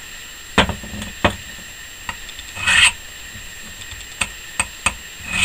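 The edge of a freshly quenched, zone-hardened ШХ15 bearing-steel knife blade scraped across a glass jar, making a few short scratches and ticks, loudest a little before the middle. The edge bites into the glass, which shows that it has taken the hardening.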